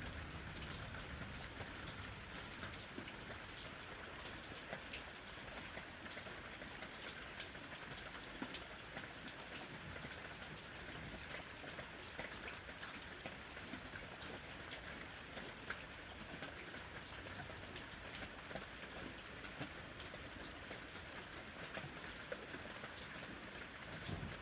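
Steady rain falling, a continuous patter with many individual drops ticking on a surface.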